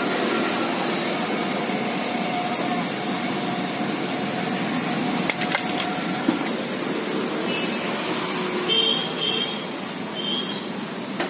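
A block of cheese being grated on a flat metal hand grater over a steel plate: a steady rasping scrape. A couple of sharp clicks come about halfway through, and a few short high chirps near the end.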